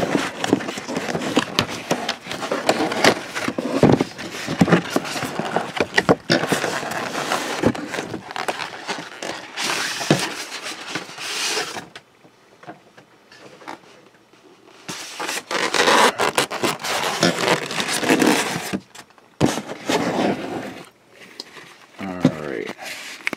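Cardboard box and polystyrene foam packaging shell being handled and slid out of the box: scraping and rustling with small clicks, in two spells with a pause of a few seconds about halfway.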